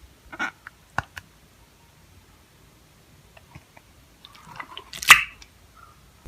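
Slime being pressed and poked by hand: a few soft, wet clicks and squishes, with a denser patch ending in the loudest squelch about five seconds in.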